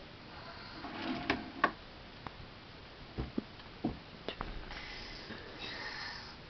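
A small child rummaging on a shelf and handling a hair curler and other small things: scattered light clicks and knocks, about a dozen, irregularly spaced.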